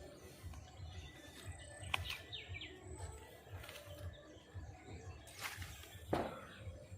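Outdoor ambience with a few quick bird chirps about two and a half seconds in, two sharp knocks (the louder about six seconds in), and a low uneven rumble underneath.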